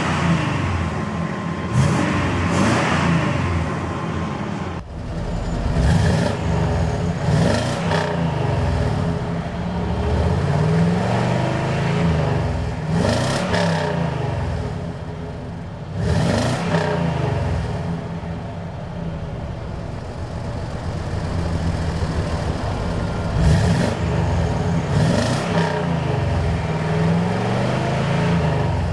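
1998 Chevrolet Silverado 3500's 7.4-litre (454) Vortec V8 running and being revved again and again through its exhaust, the pitch climbing and falling back each time.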